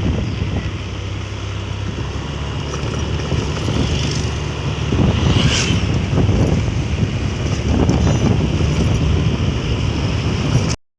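Wind buffeting the microphone over the steady engine and road noise of a moving vehicle, with a brief sharper sound about five and a half seconds in; the sound cuts off abruptly near the end.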